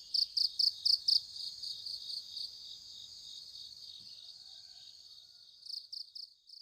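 Cricket chirping: high, evenly spaced pulses about five a second that run into a steady trill and fade, then a few more pulses near the end.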